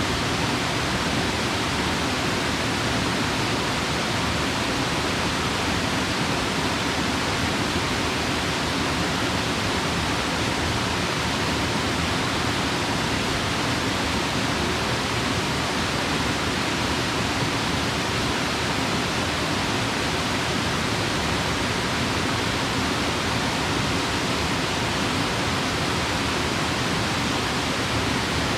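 A river waterfall pouring steadily into its pool, a constant even rush of falling water.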